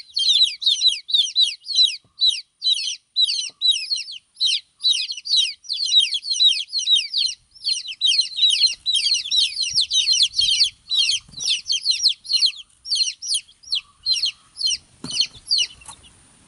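Baby chicks peeping loudly and continuously, many rapid high, downward-sliding calls overlapping, the distress calls of chicks without their mother hen. The peeping stops about fifteen seconds in.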